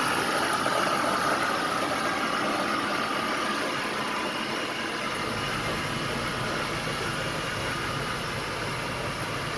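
5.7 L Hemi V8 of a 2004 Dodge Ram 1500 idling steadily, with the noise and vibration that the owner traces to a failing alternator.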